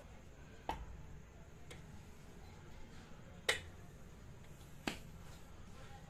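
Sharp metal clicks as a gudgeon pin is pushed through a piston and the connecting rod's small end by hand: four clicks, the loudest about three and a half seconds in.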